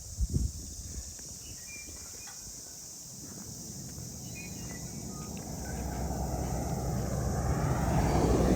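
Holden VR Commodore engine running, its rumble growing steadily louder through the second half. Two brief thumps come near the start.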